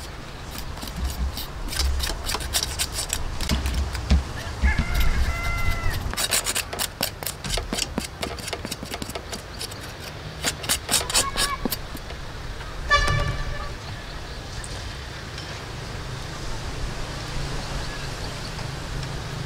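A knife scraping and tapping against a singed cow head, a rapid series of sharp scrapes and clicks that stops about two-thirds of the way in. A short horn-like toot sounds once soon after, and a low steady hum runs underneath near the end.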